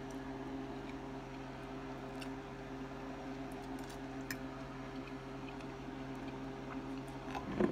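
Steady low hum of a running appliance, with a few faint clicks.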